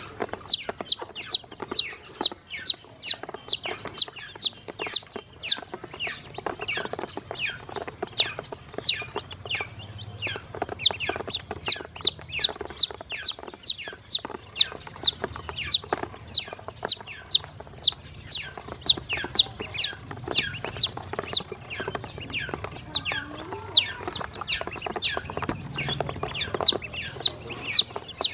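Baby chicks and ducklings peeping: a steady string of high peeps, each sliding down in pitch, about three a second, with a short lull a few seconds in.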